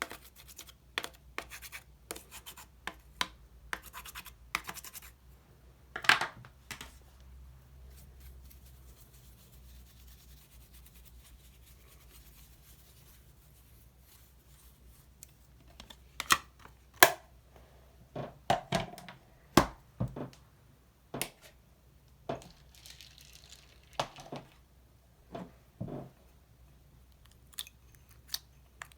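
Slime being worked by hand, with irregular sticky clicks and pops. It goes quieter for several seconds in the middle, then the clicking picks up again.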